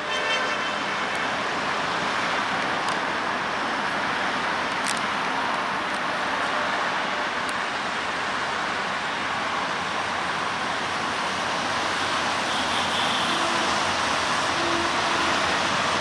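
Steady outdoor background roar, an even noise with no distinct events and no clear engine note.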